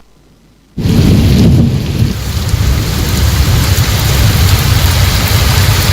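Heavy rainstorm: a loud, steady wash of pouring rain with a deep rumble underneath, cutting in suddenly about a second in.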